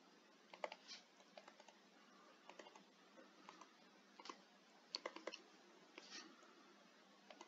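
Faint, scattered ticks and short scratches of a stylus tapping and sliding on a tablet screen as words are handwritten.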